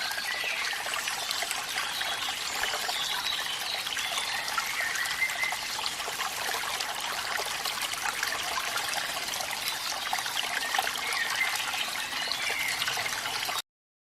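Water trickling steadily, which then cuts off suddenly near the end.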